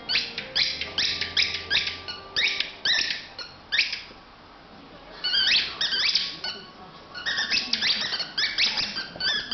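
A pet animal's high-pitched squealing calls, several a second, in two quick runs with a short pause about four seconds in.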